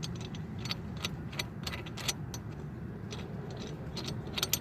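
Irregular light metallic clicks and clinks of a lug nut and hand tool being worked on a new wheel stud. The lug nut is fitted backwards so that tightening it draws the stud into the wheel hub. A quick cluster of clicks comes near the end.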